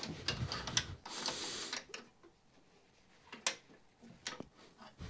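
A wrench working on a snowmobile footpeg mount to reset the peg's angle: a quick run of metal clicks and knocks in the first two seconds, then a few sharp single clicks.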